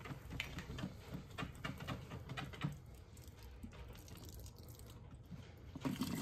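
Soapy hot water sloshing inside a plastic squeeze bottle as it is shaken by hand: a quick run of rattly splashes for the first few seconds, then quieter. Near the end, the water is poured out of the bottle into the sink drain.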